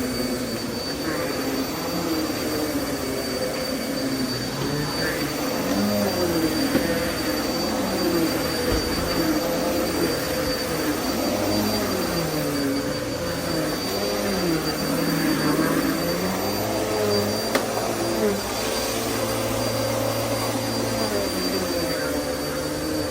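Vacuum cleaner running steadily with a constant motor whine, its lower pitch wavering up and down as the airflow changes.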